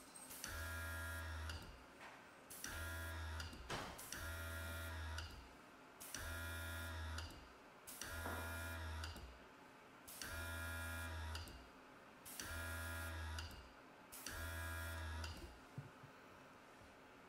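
Small airbrush compressor running in eight short bursts of about a second each, roughly every two seconds, with a steady hum and a hiss of air as touch-up paint is sprayed. The bursts stop about fifteen seconds in.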